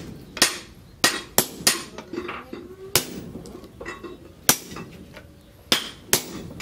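Sledgehammer blows on a hafted chisel held against a glowing-hot leaf-spring steel bar on a steel anvil. About eight sharp metallic strikes come at an uneven pace, each ringing briefly.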